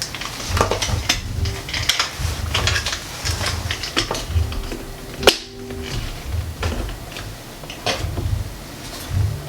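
Irregular clicks, knocks and dull thumps of a clamp clip and speedlight flash being handled and fitted together, with the sharpest click about five seconds in.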